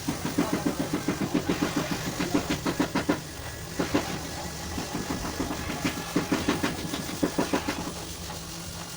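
Rapid hammer taps on a car body panel, several a second, in two runs with a pause and a single tap near the middle: panel beating of the damaged fender.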